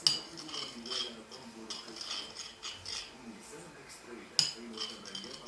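A spoon clinking and scraping against a bowl while stirring borax into a glue-and-water slime mix, with sharp strikes at the start and about four seconds in.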